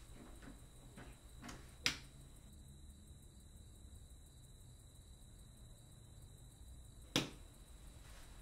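Two sharp clicks about five seconds apart, a wall light switch flicked on and then off. There are faint footsteps in the first two seconds.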